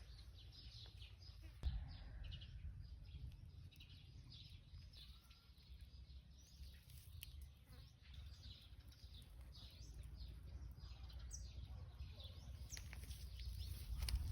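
Small birds chirping repeatedly in short, quick calls, over a steady low rumble.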